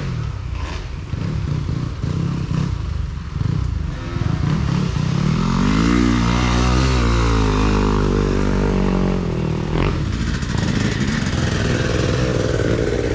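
Dirt bike engine revving under load, its pitch climbing from about four seconds in and falling away again after about seven seconds, over a steady rough rushing noise.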